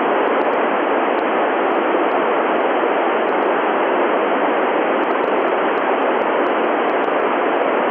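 Loud, steady hiss of an FM radio receiver on the ISS 145.800 MHz downlink with no signal coming in. The station has stopped transmitting between exchanges, so the open receiver passes pure static.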